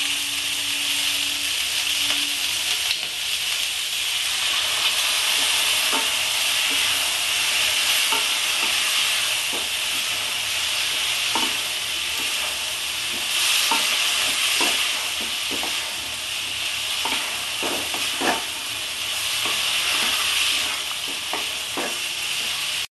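Potatoes, cauliflower and peas frying in oil in a kadai, sizzling steadily after a spice paste in water is poured in, while a spatula stirs and scrapes them around the pan. Scattered knocks of the spatula against the pan. This is the bhuna (kosha) stage of sautéing the vegetables with the spices.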